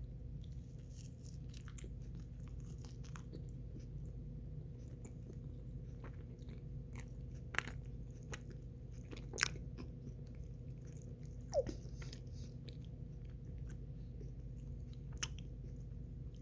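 Mouth sounds of someone eating ice cream: scattered small wet clicks and smacks, with a few sharper ones, over a steady low hum.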